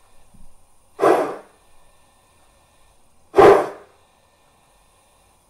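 Steam-exhaust chuffs from the sound electronics of a Gauge 1 model of the class 18.2 steam locomotive, played through the model's loudspeaker: two sharp puffs of hiss about two and a half seconds apart, in time with the wheels as the locomotive creeps along slowly.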